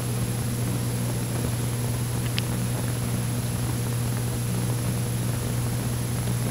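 A steady low hum over faint hiss, with one faint click about two and a half seconds in.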